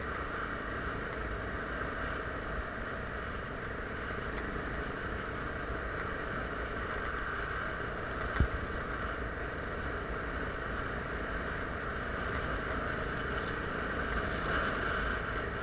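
Enduro motorcycle engine running steadily while riding over a snowy track, with one sharp knock about eight seconds in.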